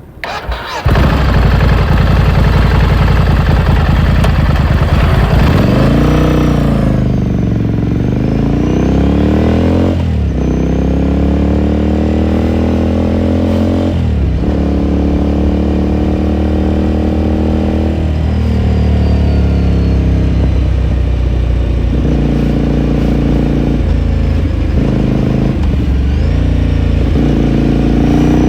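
Ducati Scrambler Sixty2's air-cooled 399 cc L-twin running under way, heard from the rider's seat with raw exhaust sound. The engine pitch climbs and drops back several times as the bike accelerates and shifts up, then rises and falls more gently with the throttle.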